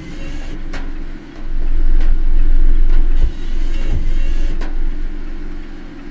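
Car cabin noise while driving: a steady low rumble of engine and road, swelling for a couple of seconds in the middle, with a few short clicks.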